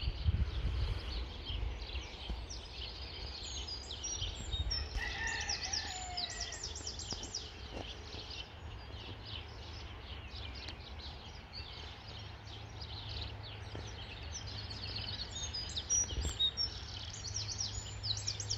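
Wild birds singing and chirping in the hedgerows, with quick high trills that come thickest about five seconds in and again near the end, and a lower falling call around five seconds in. A steady low hum runs underneath.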